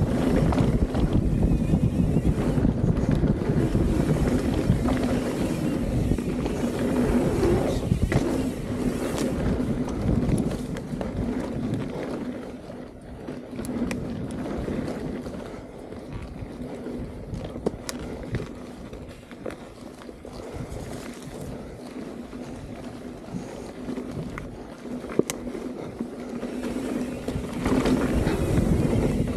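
Wind buffeting the camera microphone and tyres rolling over dirt singletrack as a mountain bike descends at speed, with a few sharp clicks and knocks from the bike. Loudest for the first ten seconds and again near the end, quieter in between.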